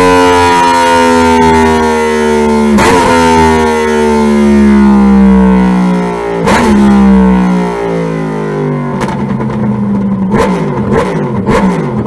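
2012 Yamaha YZF-R1's inline-four engine off the throttle on a roller dyno, its note falling slowly as the revs wind down, with a few sharp exhaust pops. From about nine seconds in, a rapid string of crackles and pops from the Toce slip-on exhaust as it backfires on the overrun.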